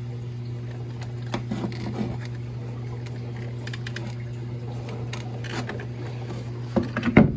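Steady low electrical hum of reef aquarium equipment still running. Over it come scattered light clicks and knocks: a few about a second and a half in, and the loudest cluster just before the end.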